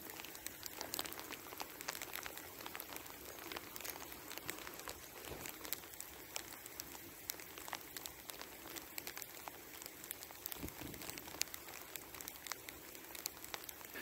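Light sleet falling: many small, irregular ticks over a faint steady hiss.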